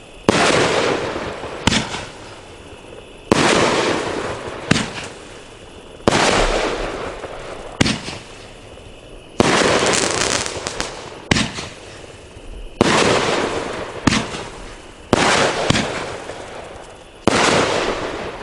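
Fisherman Fireworks 'Heavyweight Champ', a 16-shot 500-gram firework cake, firing shot after shot about every second and a half. Each shot is a sharp boom followed by a fading crackle and hiss.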